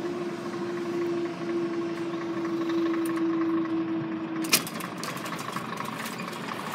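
Level crossing barrier mechanism humming steadily as the boom lifts, then stopping with a sharp clunk about four and a half seconds in as the barrier reaches upright, followed by a few light ticks.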